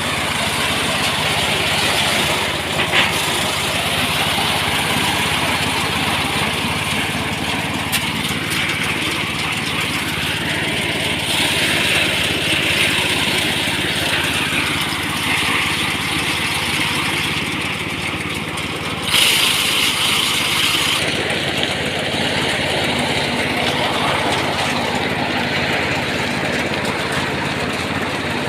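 Small engine of a paddy-field rice machine running steadily, with a rushing noise over it that swells and fades.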